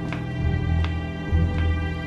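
Tense background music from a drama score: a sustained chord with two low bass swells and faint ticks about every three-quarters of a second.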